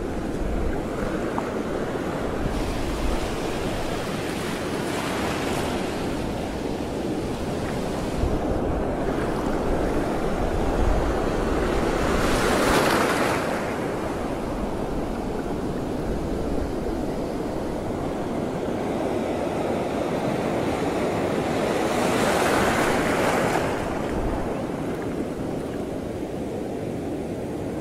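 Sea waves washing steadily, with wind rumbling on the microphone; the surf swells louder twice, a little before halfway and again about four-fifths of the way through.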